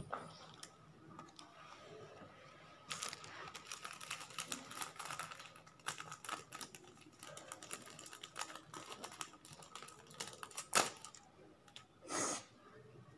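Rapid, irregular clicking and tapping, like keys being typed, with one louder click near the end and a brief swish just after it.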